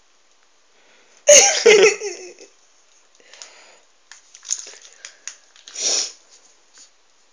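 A person bursts out laughing about a second in, a loud laugh lasting about a second. Scattered light clicks follow, then a short breathy puff of laughter near the end.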